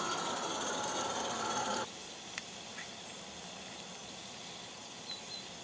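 Accucraft Mortimer live-steam garden railway locomotive running: a fast, even clatter of exhaust beats and valve gear with steam hiss. About two seconds in the sound drops abruptly to a fainter steady hiss.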